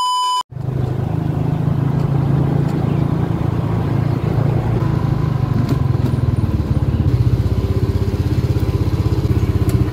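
A steady 1 kHz test tone cuts off about half a second in. Then a motorcycle engine runs steadily, low and pulsing.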